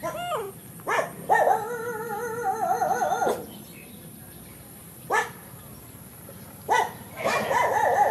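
An animal's high, wavering cries: a short falling call at the start, sharp rising squeaks about a second in and again around five and seven seconds, and two long warbling cries, one lasting about two seconds, the other near the end.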